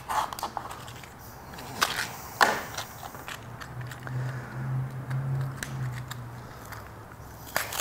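Pocket knife cutting and prying open a plastic blister pack, with crackling plastic and a few sharp snaps; the loudest snap comes about two and a half seconds in.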